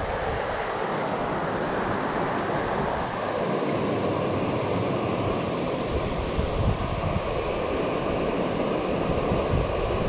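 Steady rush of creek water pouring over a small waterfall and riffles, with wind buffeting the microphone in low gusts from about halfway through.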